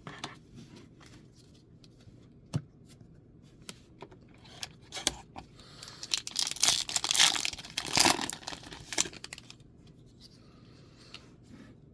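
Foil wrapper of a Magic: The Gathering booster pack being torn open and crinkled, with scattered light clicks of handling at first and the loudest tearing and crinkling from about halfway through.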